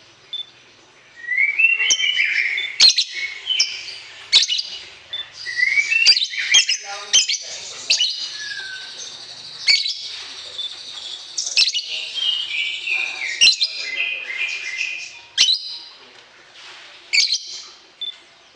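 Songbird singing a fast, dense song of chirps, trills and sharp chip notes, with short downward-sliding phrases, starting about a second in.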